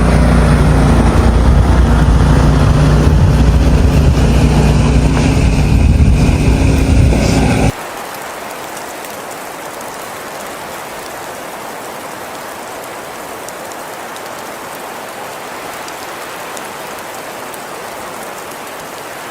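A loud engine or motor running steadily close by, with a low, even hum, which cuts off suddenly about eight seconds in; a steady, quieter hiss follows.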